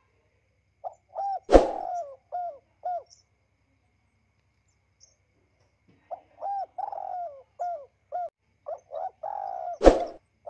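A bird calling in short notes that rise and fall in pitch: a run of about five in the first few seconds and a longer run in the second half. Two sharp knocks cut in, the loudest about a second and a half in and another near the end.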